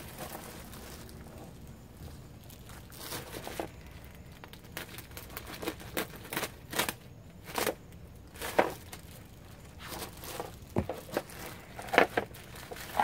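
Thin clear plastic bag crinkling and rustling in irregular bursts as a bagged plastic part is handled.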